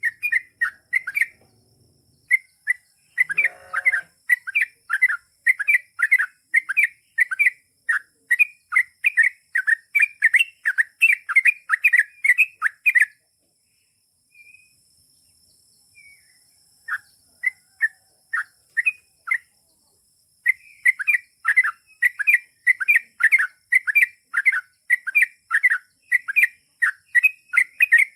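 Yellow-vented bulbul (trucukan) singing a long rapid run of short chirping notes, about three a second; the run breaks off about halfway through, leaving a few scattered notes, then starts again.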